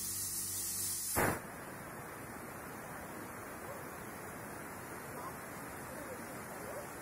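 Pressure cooker on a gas stove venting steam through its weight valve ('whistle'): a sudden rush about a second in, then a steady hiss of dry steam with no water spitting out.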